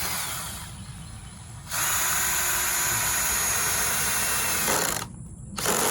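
A power drill running: it winds down just after the start, then runs steadily again for about three seconds before spinning down near the end.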